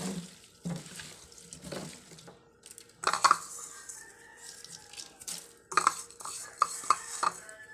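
Hands tossing small salted fish with pounded garlic in a plastic colander: soft wet swishing strokes, then several sharp clatters and knocks of the colander and fish against a stainless steel sink, around three seconds in and again near the end.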